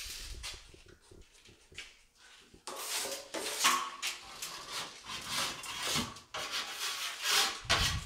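Steel drywall trowel scraping and spreading joint compound across the wall and off the hawk, in repeated uneven strokes. It is faint at first and louder from about three seconds in.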